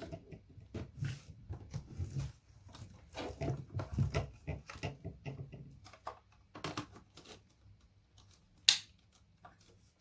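Handling noises: irregular clicks, knocks and rustles, densest in the first half and sparser later, with one sharp click near nine seconds in.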